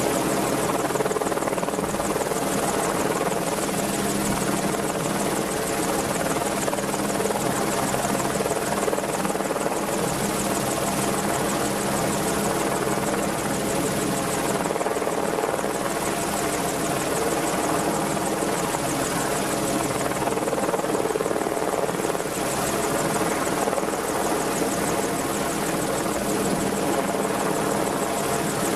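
Merlin helicopter running steadily: a continuous drone of rotor and turbine engines with a high whine over it, with no change in level throughout.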